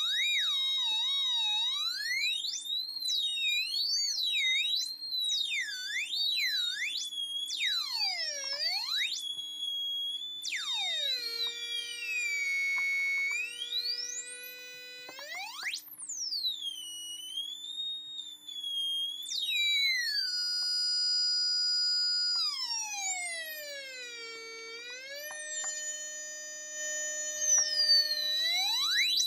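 Two homemade breadboard oscillators mixed through diodes, making high electronic tones that glide up and down as their knobs are turned: one wavers around a high pitch while the other swoops in deep dips, now and then both hold steady. A faint steady hum lies beneath.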